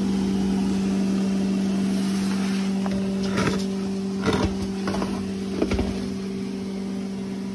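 A steady machine hum with a low tone and one higher overtone, over a constant hiss, with a few short knocks and rustles in the middle.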